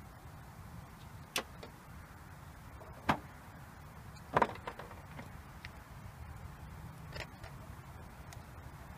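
A few sharp clicks and knocks from cables, clamps and fittings being handled in a car's open engine bay, the loudest a quick double knock about halfway through, over a low steady rumble.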